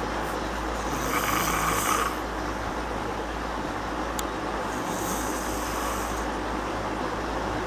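A sleeping woman snoring: two breathy snores about four seconds apart, the first a little louder, over a steady background hiss and hum such as a room fan gives.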